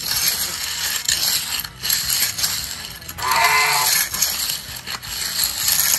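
Hand trowel scraping and rubbing over a freshly wetted dry-pour concrete slab, working up the surface paste: a gritty, clinking rasp in many short strokes. A short pitched call is heard about three seconds in.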